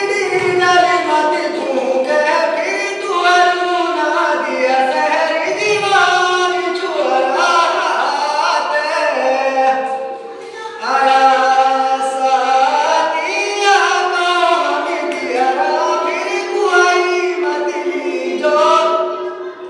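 A man singing a Mewati folk song unaccompanied, in long held and wavering phrases, with a brief pause for breath about ten seconds in.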